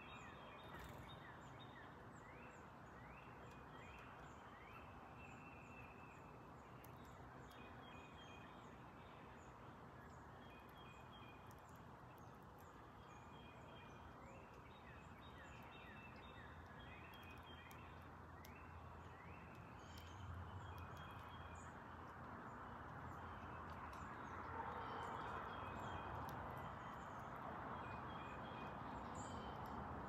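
Faint outdoor ambience: songbirds calling and singing with many short, thin, repeated notes over a steady background hiss that grows slightly louder in the last third.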